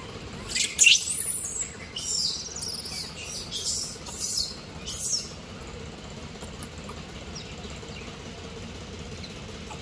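A run of shrill, high-pitched animal calls: several short ones over the first five seconds, the loudest about a second in, then only a steady low background noise.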